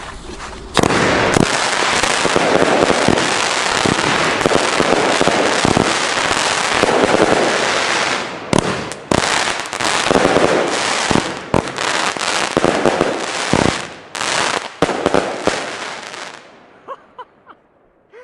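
Bonefireworks Triple Thunder Stars crackling battery firing. About a second in, a loud, dense, continuous crackling starts and runs for about fifteen seconds, breaking up briefly a few times in the second half, then dies away into a few scattered pops.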